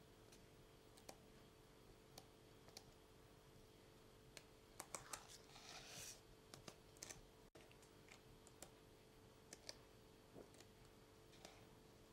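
Near silence with the faint rustle and scattered small clicks of glossy pages of a large hardback photo book being turned by hand, with one louder page swish about halfway through, over a steady faint hum.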